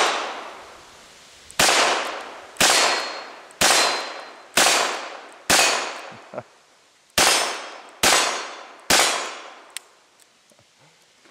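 Taurus Model 94 .22 Long Rifle revolver fired eight times, roughly one shot a second with a longer pause after the fifth. Each report is a sharp crack with a short echo, and some carry a light metallic ring from the bullet striking steel plates.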